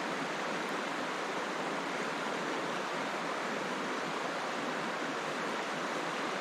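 Shallow, fast riffle of a trout river rushing over rocks, a steady even rush of water.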